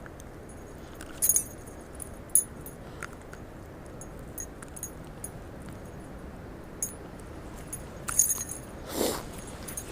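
A metal spinnerbait's blades and hooks clinking and jingling in several short bursts as a hooked bass is worked free, over a steady low rush of wind. A brief louder rush of noise comes near the end.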